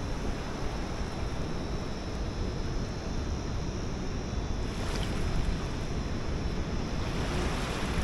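Wind buffeting the microphone over small waves washing onto a sandy shore, a steady rushing noise that swells a little about five seconds in and again near the end.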